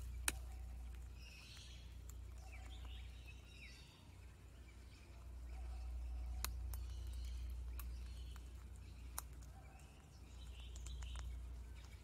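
Australian king parrot's beak cracking seeds from a seed block: three sharp clicks, the loudest right at the start, over a low rumble of wind on the microphone that swells and fades. Faint bird chirps come and go.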